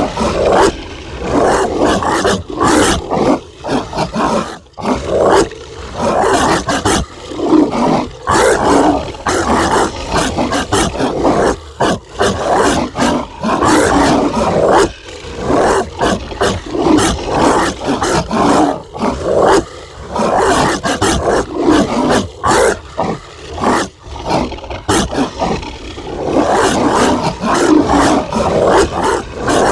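Zombie dog barking sound effect: loud, harsh dog barks that run almost continuously, with only brief gaps.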